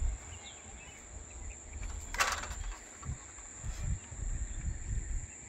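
Insects droning with one steady high-pitched tone over a low, uneven rumble; a short rasping burst about two seconds in.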